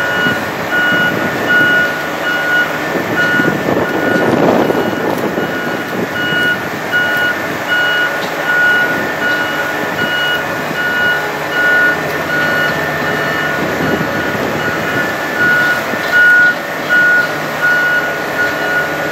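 Warning alarm of a MAX-ER heavy-lift crane beeping in a steady run of short, evenly spaced beeps while the crane crawls forward, over the running of its engines, which swell briefly about four seconds in.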